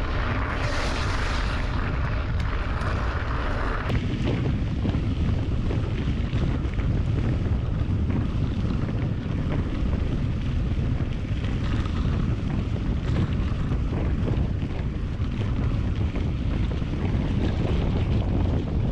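Wind buffeting the microphone of an action camera mounted on a moving mountain bike. About four seconds in it turns to a deeper, steady rumble.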